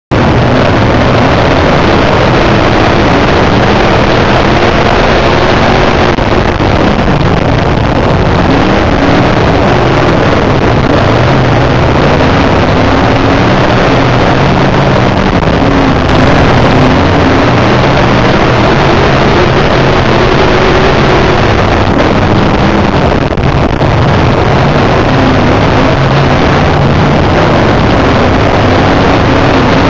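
IMCA dirt modified race car's V8 engine running hard, heard from inside the cockpit, its pitch rising and falling as the throttle comes on and off, with wind buffeting the microphone.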